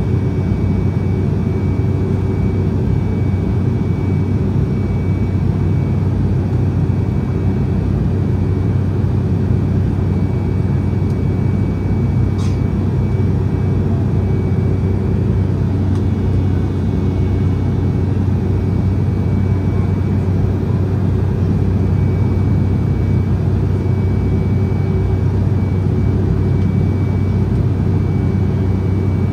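Steady, low-pitched cabin noise of an Embraer E190 jetliner in flight, from its turbofan engines and the airflow, with a faint high whine running through it. One brief click about twelve seconds in.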